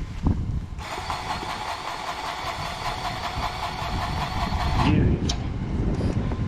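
Battery-powered grease gun running for about four seconds, its motor whining and pulsing evenly as it pumps grease into a fitting, then stopping suddenly. A low rumble runs underneath.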